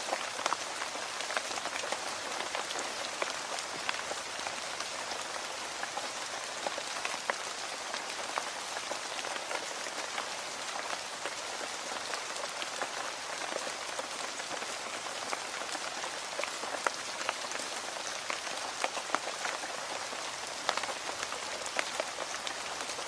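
Steady rain falling on a hard surface, an even hiss with many separate drops ticking sharply through it.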